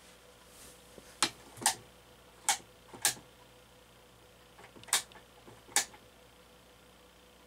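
Six sharp clicks, roughly in three pairs, from the switches of a vintage Montgomery Wards cast iron spinner ceiling fan being worked to set it to reverse and start it.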